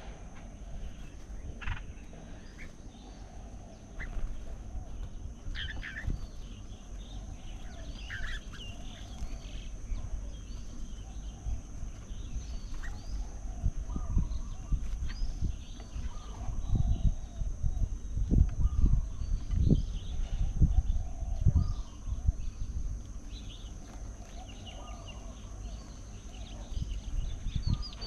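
Small birds chirping and calling around a backyard feeding table, many short calls overlapping throughout, with a run of low thuds near the microphone in the second half.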